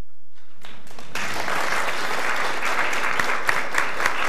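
Audience applauding: the clapping starts about half a second in and swells within a second into steady applause from many hands.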